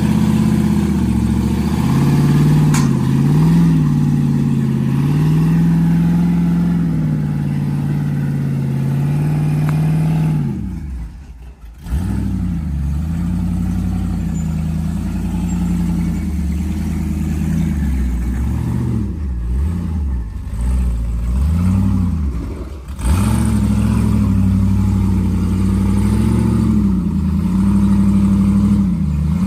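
An off-road Jeep's engine revving up and down under load as it crawls a rock ledge, its pitch rising and falling with each push of the throttle. The engine sound drops away for a moment about eleven seconds in.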